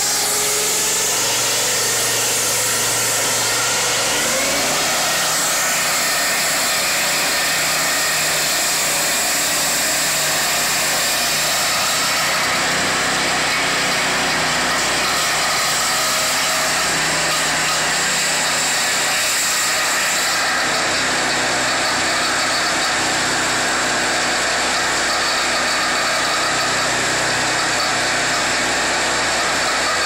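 Peterson WPF swing-blade sawmill running: the saw head's engine at working speed and its circular blade cutting along a timber beam, a steady, unbroken noise.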